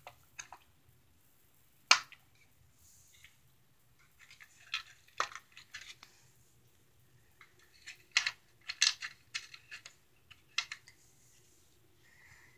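Small plastic toys clicking and knocking together as they are picked up and handled: a sharp click about two seconds in, then scattered clusters of light clicks.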